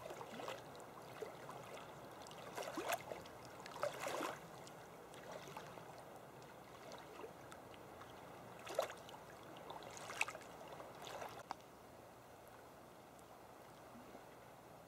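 Small waves lapping against a rocky lakeshore: faint, irregular soft splashes, a few slightly louder ones about three, four, nine and ten seconds in.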